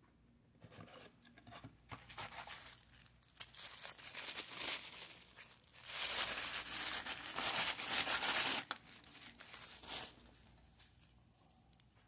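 Thin white wrapping crinkling and tearing as it is pulled off a knife by hand. The rustling comes in uneven bursts, is loudest for a couple of seconds just after the middle, and stops about two seconds before the end.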